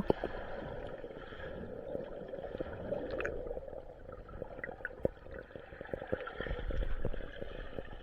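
Swimming-pool water sloshing and splashing in the rain, with many small clicks through a steady, muffled wash of water noise.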